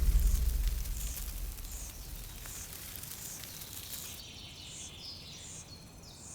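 Forest ambience: a high chirp repeating about every 0.7 seconds, joined after about four seconds by more, falling chirps. A deep low rumble fades away over the first two seconds.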